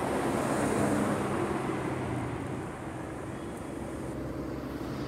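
A car driving past, loudest about a second in, then fading as it moves away.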